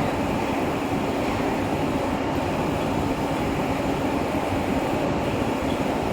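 Heavy industrial machinery running with a steady rumble and a constant hum.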